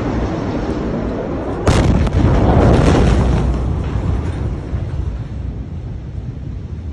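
Blast wave of the Beirut port ammonium nitrate explosion reaching the camera: a sudden, very loud boom a little under two seconds in, over a steady low rumble. A heavy rumble follows and fades over the next few seconds.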